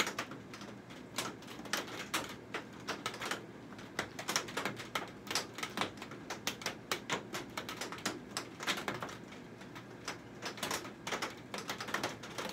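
Rain popping: raindrops hitting in uneven, sharp taps, several a second.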